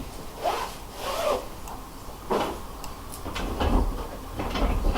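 Irregular rubbing and scraping handling noises in several short strokes, with low thumps near the end.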